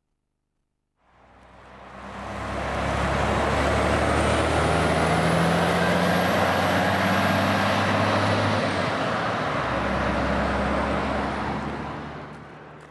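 Coach bus on the road: its engine running low and steady under heavy tyre and road noise. The sound swells in from silence about a second in, stays loud, and falls away near the end, with a faint high whine rising and falling midway.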